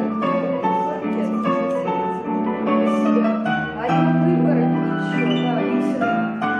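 Instrumental piano music with a steady beat, chords changing about every half second, playing as accompaniment to a ballet class.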